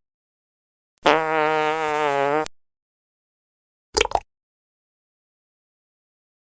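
Two separate sound-effect clips: a buzzy, slightly wavering tone lasting about a second and a half, then a brief noisy burst about a second and a half later.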